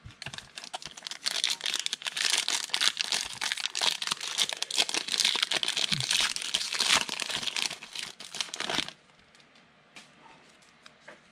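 Trading card foil pack being torn open and crinkled by hand, a dense crackling that stops sharply near the end.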